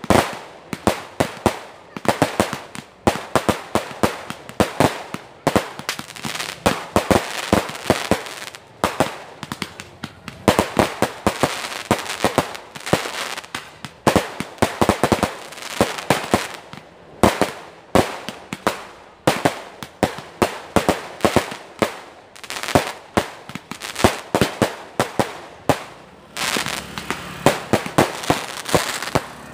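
Aerial fireworks launching and bursting in quick succession: a continuous run of sharp bangs and pops, several a second. Near the end they give way to a denser hissing crackle.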